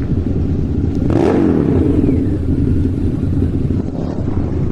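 Motorcycle engine running with a fast, even beat, briefly revved about a second in and then settling back down.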